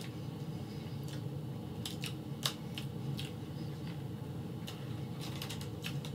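Tortilla chips being handled, giving a scattered series of short dry clicks and crackles, over a low steady hum.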